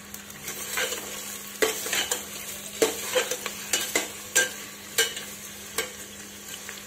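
Sliced onions sizzling in hot oil in a metal pressure cooker while a slotted metal spoon stirs them. The spoon knocks and scrapes against the pot about twice a second, less often near the end.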